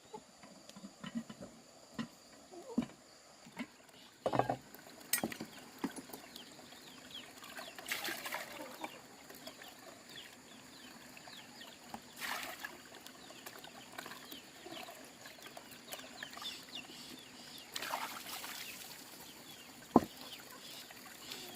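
Chickens clucking now and then, among scattered light knocks and rustling, with one sharp knock near the end.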